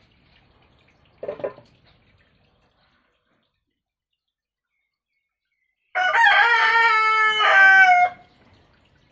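A rooster crowing once, a loud call of about two seconds starting about six seconds in, after a brief fainter sound about a second in.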